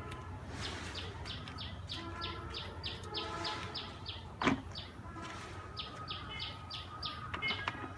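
A bird's short high chirps, repeated about three times a second in two runs with a brief pause between, over a steady low background hum. About halfway a brief, louder falling sound cuts in.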